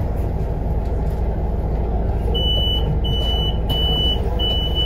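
Inside a Solaris Urbino 18 III articulated bus at a stop: a steady low rumble from the idling bus, and from about halfway through a high electronic beep repeating about one and a half times a second, four times, the warning signal that the doors are about to close.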